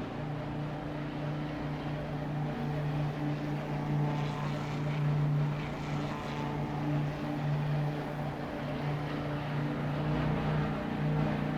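A steady engine drone holding an even, low pitch without a break.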